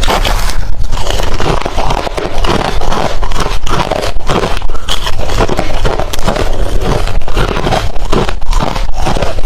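Close-miked chewing of hard refrozen crushed ice: a loud, continuous run of irregular crunches.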